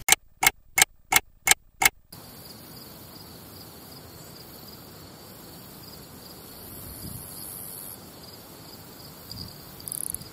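A clock-ticking sound effect: six sharp ticks, about three a second, over silence. Then crickets chirping steadily in the outdoor ambience.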